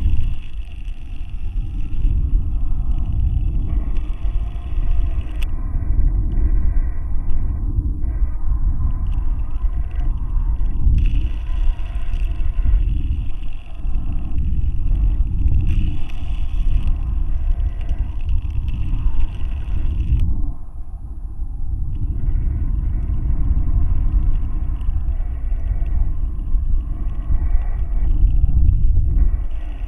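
Low, uneven rumble picked up by the onboard camera of a high-altitude balloon payload, with a faint steady high-pitched whine above it.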